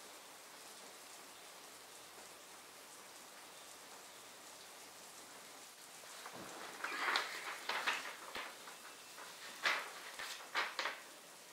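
A sheet of paper being handled and folded, crinkling in a run of short rustling bursts over about five seconds in the second half, over a steady low hiss.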